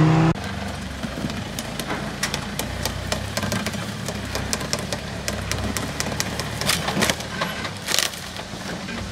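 Short-wheelbase Land Rover Defender's engine running at low revs as it crawls slowly over rocks, with frequent sharp clicks and knocks and two louder knocks near the end. A louder engine note cuts off abruptly at the very start.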